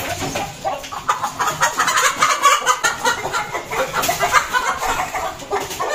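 Light Columbian Brahma chickens squawking and clucking in agitation as one is grabbed by hand and pulled from a wire cage, with a flurry of rapid wing flapping from about a second in.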